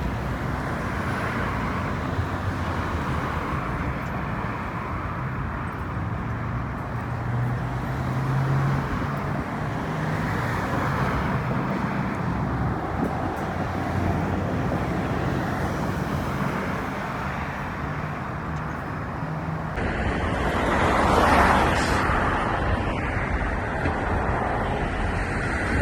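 Steady road traffic noise with a low engine hum from passing vehicles. About twenty seconds in the sound changes abruptly and gets louder, with a vehicle swelling past.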